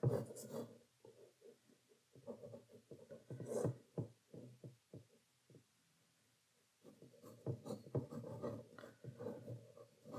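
Pencil drawing on rough watercolour paper: clusters of short scratchy strokes, broken by a pause of about a second and a half roughly five seconds in.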